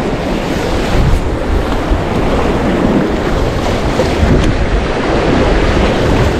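Choppy, wind-driven lake waves splashing against the shore edge, with strong wind buffeting the microphone.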